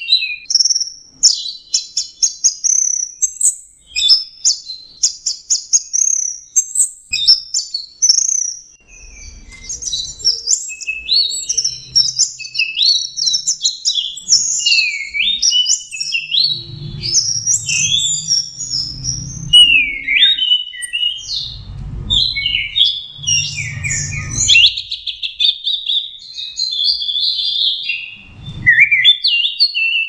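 Orange-headed thrush (anis merah) singing nonstop in the 'teler' style: a fast, unbroken stream of varied whistles and chirps, many notes sliding up or down. Low rumbling thuds come and go under the song in its second half.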